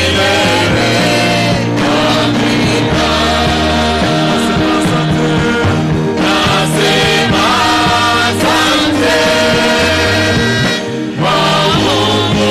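Gospel song with voices singing over a steady bass and band accompaniment.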